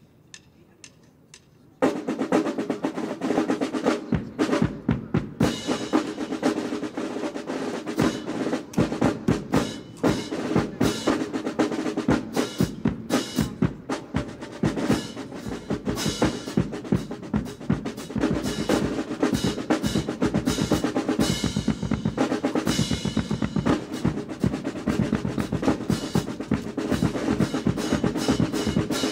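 Massed military marching snare drums with bass drums playing a rudimental drum solo, with fast rolls and accented strokes. After a quiet opening with a few faint clicks, the drumming comes in loud about two seconds in.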